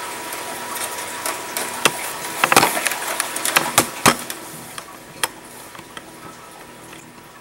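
Scattered sharp clicks and knocks of hard plastic, loudest and closest together about two and a half to four seconds in, as an Xbox console's plastic casing is handled and the side-panel clips are prodded and pried.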